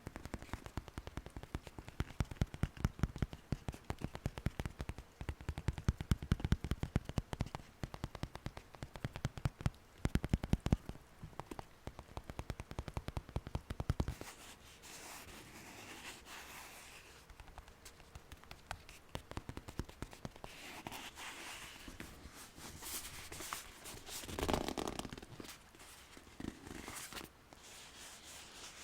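Close-miked ASMR handling sounds. Dense, irregular crackling fills roughly the first half, then gives way to softer rustling and scraping with a louder swell about three-quarters of the way through.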